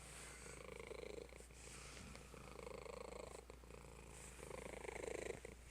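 Domestic cat purring, in swells about a second long that come roughly every two seconds, the rhythm of the purr following the cat's breathing.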